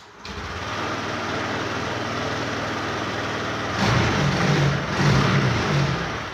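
Honda Activa 6G scooter's single-cylinder engine starting up, idling, and revved twice before settling back to idle. It runs without the engine noise it had before, now that a new tensioner has been fitted.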